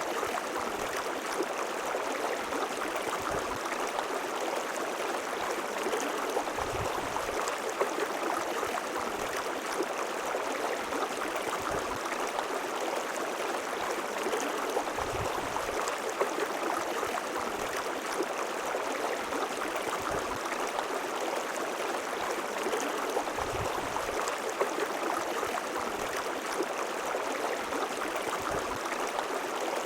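A river flowing: steady rushing water, with an occasional soft low thump.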